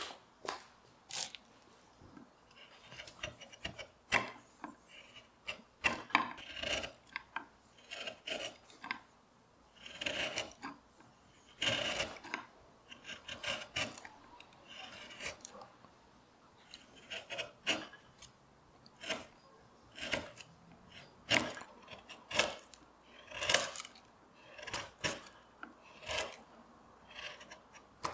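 Hand carving gouge paring walnut, a series of short scraping cuts about one a second with brief pauses, each stroke lifting a curled shaving.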